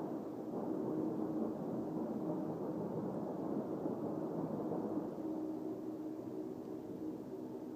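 Steady low droning hum of unknown origin heard outdoors, a rumbling noise with a few faint held tones running through it.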